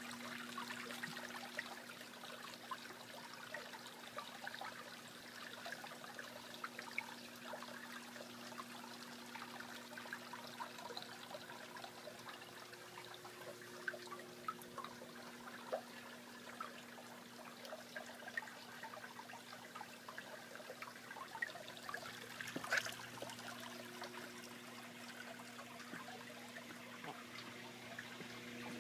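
Water trickling and splashing into a garden koi pond, a steady patter of small drips and splashes over a low, steady hum. One sharper tap stands out about three quarters of the way through.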